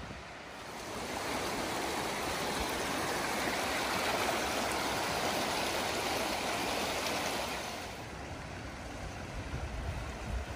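Fast, muddy floodwater of a rain-swollen river rushing over rocks and through the channel: a steady rushing hiss. It swells about a second in and eases again near the end, with some wind buffeting the microphone at the very end.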